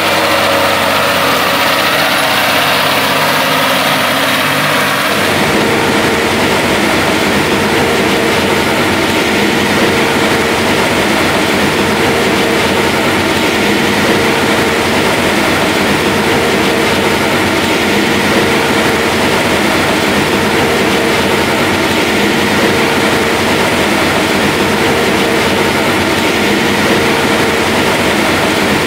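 Large farm machinery running steadily under load, its engine noise dense and even. The sound changes abruptly about five seconds in, then carries on unchanged.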